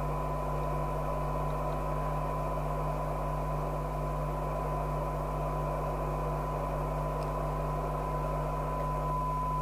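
Steady single test tone from the Harrier CBX CB radio's speaker, the recovered audio of a modulated S9 test signal being received, over an even hiss and a low mains hum. The tone holds steady while the receiver's front end is being peaked.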